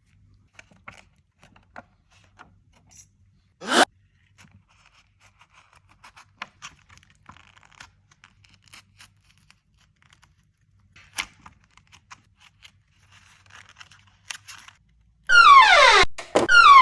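Faint scattered clicks and scrapes of small repair tools working on a smartphone, with a short whoosh about four seconds in. Near the end comes a loud run of falling pitched sweeps.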